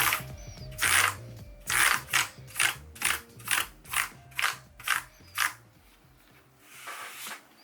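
A run of about a dozen sharp plastic clacks on a Leopold FC750R mechanical keyboard with Cherry MX Brown switches, coming about twice a second, then a softer rustle near the end.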